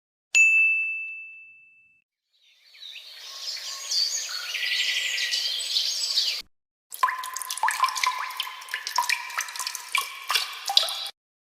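Three short sound effects in a row. First a single high bell ding that rings out for about a second and a half. Then a few seconds of birds chirping over a water-like hiss, and finally about four seconds of quick clicks and clinks.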